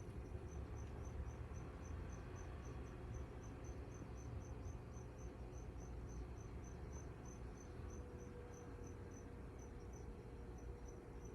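A cricket chirping steadily, about three to four short, high chirps a second, over a low steady hum.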